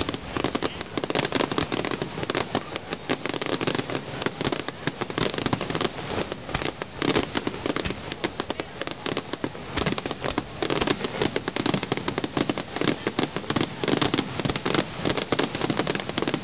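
Fireworks display in a dense barrage: many rapid, overlapping bangs and crackles with no let-up.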